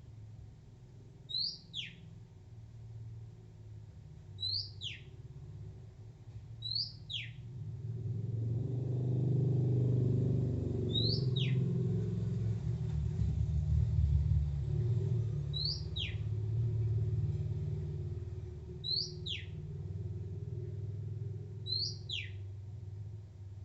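Oriental magpie-robin giving a repeated whistled call: a short upward note that slides sharply down in pitch, seven times at intervals of two to four seconds. Under it a low rumble swells from about eight seconds in and fades by about eighteen seconds.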